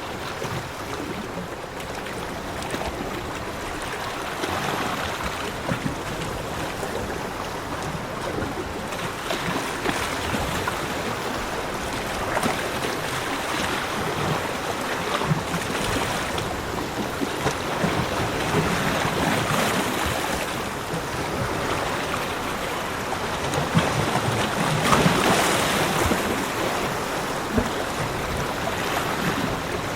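Sea waves breaking on a beach: a continuous rush of surf that swells and falls back every few seconds, the loudest wave about 25 seconds in.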